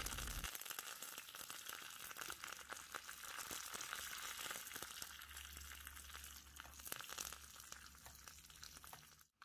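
Mustard seeds, dried red chillies and curry leaves frying in hot coconut oil in a small pan: a faint sizzle thick with fine crackles and pops that slowly dies down.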